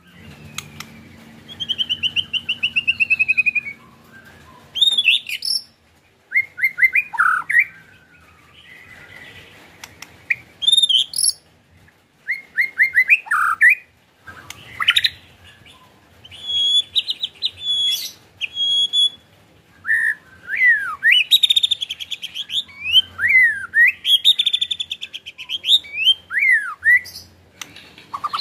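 White-rumped shama singing a varied song: short phrases of sweeping whistles and fast rattling runs of repeated notes (the 'ketrekan'), with brief pauses between phrases.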